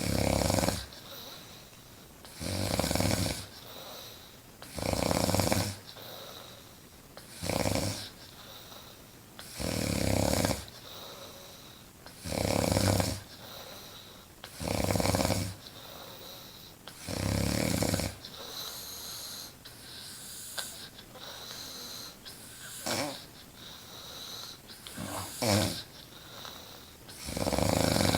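A woman snoring loudly, one long snore about every two and a half seconds. After about eighteen seconds the snores turn softer and shorter, and a loud one returns near the end.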